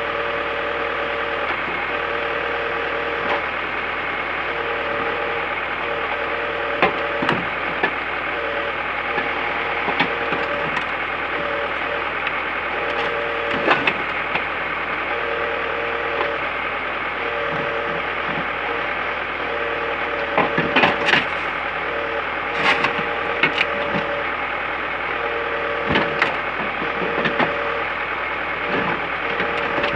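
Iveco truck engine and crane hydraulics running steadily while the scrap grapple bites into the roof of a wrecked Peugeot 306, with irregular cracks and crunches of splintering wood and crumpling metal, busiest about twenty seconds in.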